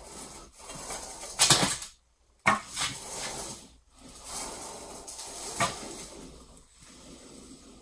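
Golf balls rolling and grinding on concrete under a 750 lb Browning Pro Steel gun safe as it is shoved along in short pushes, with a few sharp clacks and scrapes.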